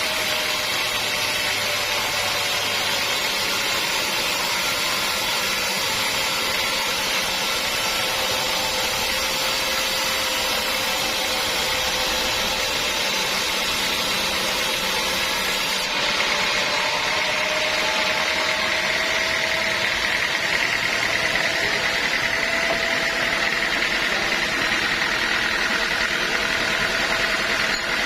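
Sawmill machinery running steadily: a continuous mechanical din with a held tone that wavers slightly. About halfway through it changes abruptly, becoming a little louder and brighter.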